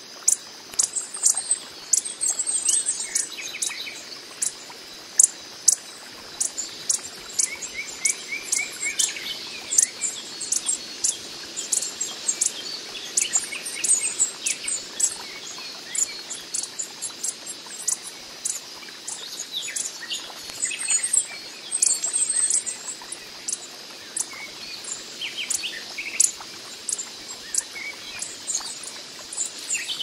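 Coppery-headed emerald hummingbird giving many sharp, very high chip notes, a few each second, broken by short rapid trills. A steady high insect trill runs underneath.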